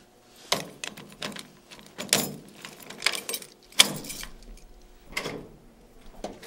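Keys jangling and a door lock and handle clicking and rattling as a door is unlocked: a series of separate metallic clinks and clicks.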